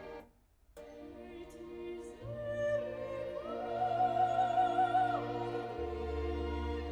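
Operatic singing with orchestral accompaniment, played back through hi-fi bookshelf loudspeakers and recorded in the room. The music cuts out for about half a second near the start, then a voice comes in with long held notes and vibrato.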